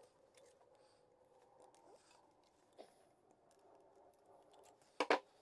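Pliers bending the slit segments of a thin sheet-metal disc into impeller blades: faint scratches and creaks of the metal, then two sharp clicks in quick succession near the end.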